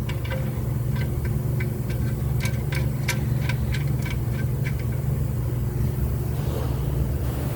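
Steady low mechanical hum, with a run of about a dozen light, sharp clicks at uneven intervals during the first five seconds.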